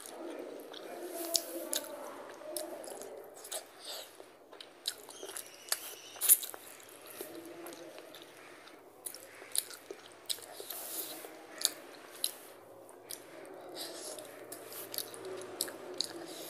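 Close-up chewing of rice and fish curry eaten by hand, with frequent sharp mouth clicks; the loudest click comes about six seconds in.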